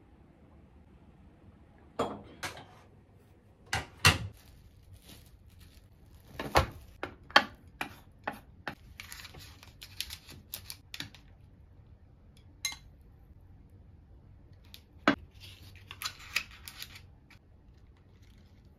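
Kitchen clatter as a bento lunch box is packed: sharp clinks and knocks of containers, lids and chopsticks against dishes, bunched mostly in the first half. Two short rustling, scraping stretches come as food is laid into the box, one near the middle and one near the end.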